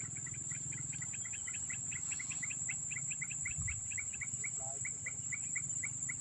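Dusk forest insect chorus: a steady high-pitched insect drone, with a quick run of short chirps, about four a second, that thins out and stops near the end.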